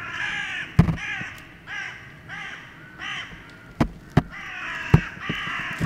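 Crows cawing in a rapid, continuous run, roughly two harsh caws a second, disturbed from their roost at night. Four sharp knocks, the loudest sounds, cut through about one, four and five seconds in.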